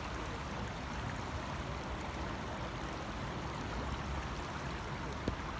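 Shallow stream running over a stony bed: a steady rush of water.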